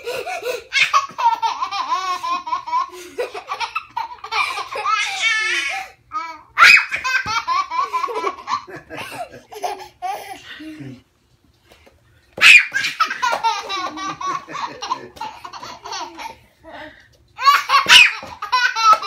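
Toddler laughing hysterically in several long bouts of rapid, pulsing belly laughs, with short breaks between them. Some bouts start abruptly and loud.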